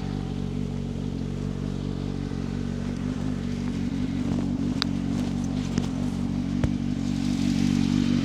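CFMoto 500SR Voom motorcycle running at a steady engine speed through an SC Project carbon slip-on exhaust, with the stock catalytic converter kept. It gives an even low exhaust note that grows slightly louder near the end, with a couple of brief sharp clicks in the middle.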